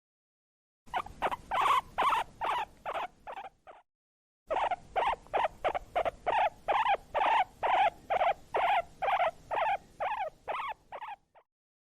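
Guinea pig wheeking: short, high squealing calls repeated about three to four times a second, in two runs with a brief pause about four seconds in. Wheeking is the call guinea pigs make when hungry or excited.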